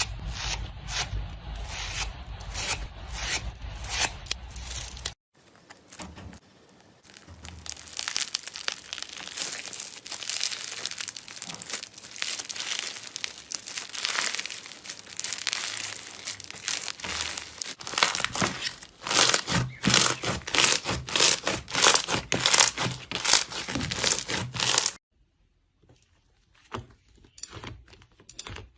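Slime being squeezed and stretched by hand, giving dense crackling, popping sounds, in several short clips cut together abruptly.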